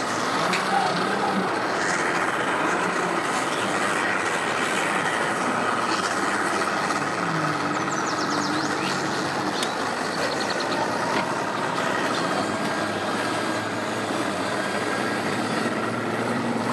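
Mercury outboard motor on a bass boat running steadily at low speed as the boat backs off its trailer and pulls away, with the propeller churning the water.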